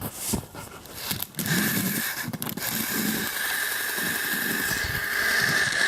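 A motorized toy train's small geared motor: a few clicks, then about a second and a half in it starts running steadily with a constant whine and a rattle of gears.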